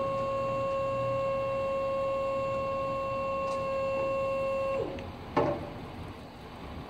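Electric motor on a tilt-deck trailer running steadily with a high whine, which falls in pitch and stops a little under five seconds in. About half a second later comes a single clunk as the tilted deck carrying the 20-foot shipping container comes down.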